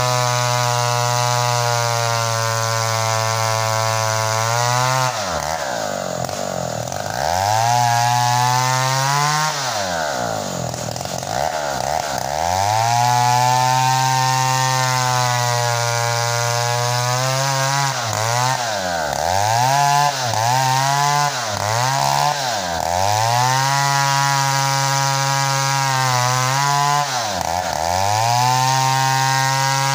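Assembled chainsaw ripping a red meranti log lengthwise, running at full throttle through the cut. The engine speed sags and climbs back several times, about seven dips in all, with a cluster close together in the latter half.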